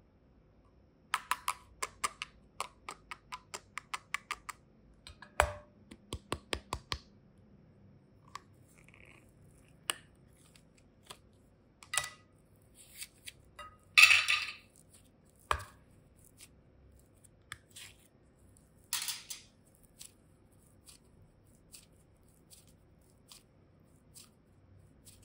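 Small hard-plastic flower-shaped clay boxes handled and opened: a quick run of small plastic clicks for the first several seconds, then a few scattered scrapes and snaps. The loudest is a short rasp about halfway through.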